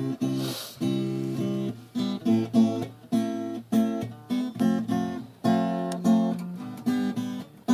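Acoustic guitar strummed, playing a run of chords with repeated strokes.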